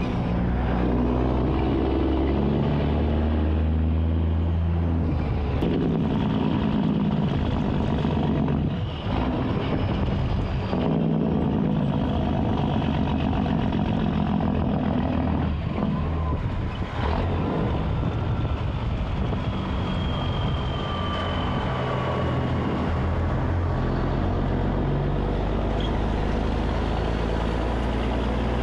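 Peterbilt semi-truck's diesel engine running on the move with road noise. Its pitch steps up and down a few times, with brief dips in loudness about nine and seventeen seconds in.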